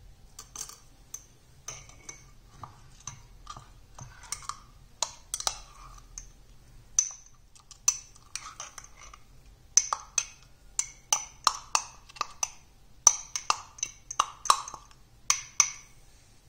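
Irregular sharp clinks of a kitchen utensil striking a vessel that rings briefly after each hit. They come about two a second and grow louder and more frequent after about ten seconds.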